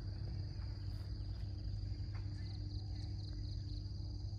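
Belarus tractor's diesel engine running with a low, steady rumble, under a high, pulsing chirp of insects.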